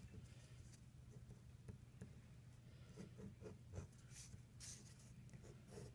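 Faint scratching of a ballpoint pen writing on paper, with light taps of the pen, over a low steady room hum; the strokes come more often in the second half.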